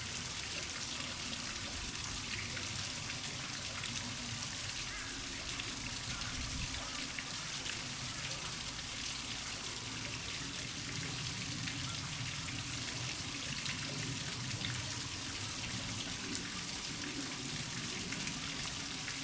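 Steady hiss of water with many fine pattering ticks.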